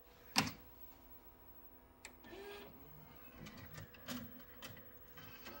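A laserdisc player's mechanism working in short spurts: a sharp click about half a second in, then scattered clicks and brief low motor whirs.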